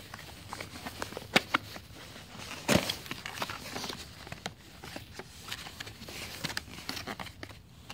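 Small cardboard product box being opened by hand: its flaps and the card packaging inside scraping, rustling and tapping in an irregular string of short clicks, with sharper knocks about a second and a half in and near three seconds in.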